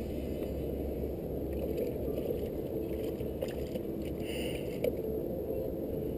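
Steady, muffled low rumble of a kayak on calm water, picked up by a chest-mounted GoPro inside its housing, with a few faint clicks.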